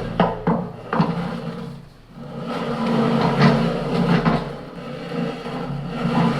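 A few sharp knocks and clunks as parts are worked on during the driveline installation, over a steady low hum.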